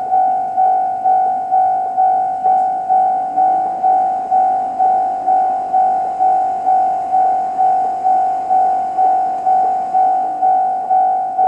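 Japanese railway level-crossing electronic warning bell sounding the JR Central-type tone, a single ringing pitch struck about twice a second with each stroke fading before the next.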